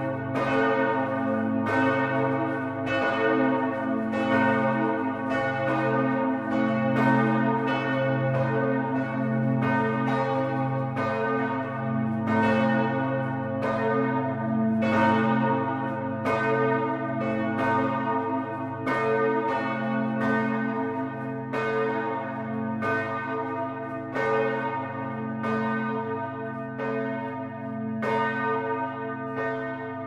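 Church tower bells ringing together: overlapping strokes about once a second over a sustained low hum, easing slightly in loudness near the end.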